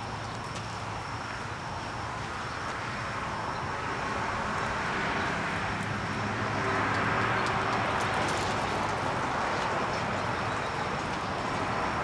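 Steady rumble of vehicle engine noise, swelling louder through the second half.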